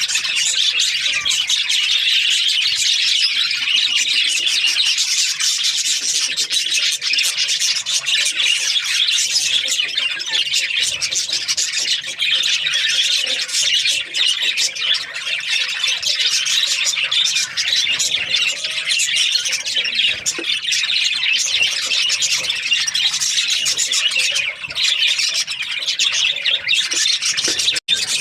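A flock of budgerigars chattering continuously, a dense mix of many overlapping high chirps, warbles and squawks. The chatter breaks off for a moment near the end.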